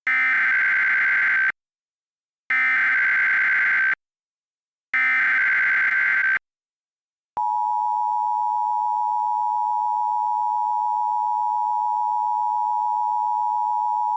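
Emergency Alert System tones: three bursts of SAME digital header data, each about a second and a half long with a short gap between, then the steady two-tone EAS attention signal (853 and 960 Hz) starting about seven seconds in.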